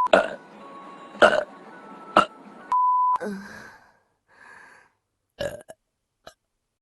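Several short human burps from different recordings, one after another, with a steady high beep lasting about half a second, about three seconds in, between them.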